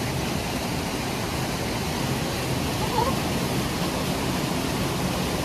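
Steady rush of falling water from a waterfall and its stream.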